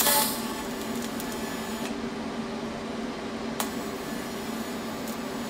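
TIG welding arc struck with a sharp crackle, then a steady hiss over a constant hum as it fuses a small steel coupon without filler rod at about 60–65 amps. One sharp click about three and a half seconds in.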